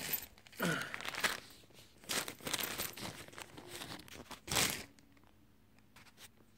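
Clear plastic zip bag crinkling as it is picked up and handled, in several bursts with a short sharp one near the end.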